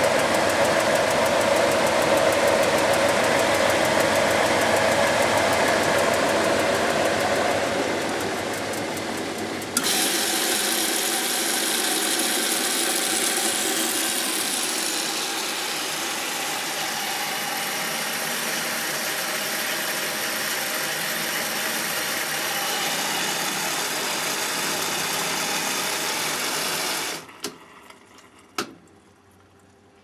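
Philips SL 202 washing machine running, its motor and drum making a loud, steady mechanical noise. The noise changes abruptly about ten seconds in. It stops suddenly near the end, followed by two sharp clicks.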